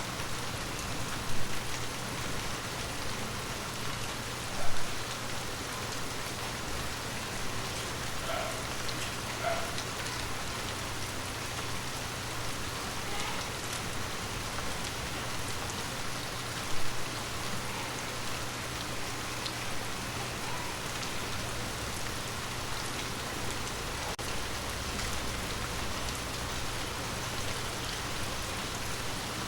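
Steady rain falling on forest leaves, an even patter, with three short louder hits standing out: about a second in, about five seconds in, and a little past the middle.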